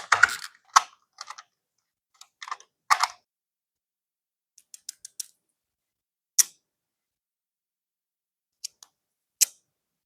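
Hands handling art-kit packaging and items: irregular short clicks, taps and brief crinkles, with silent gaps between them.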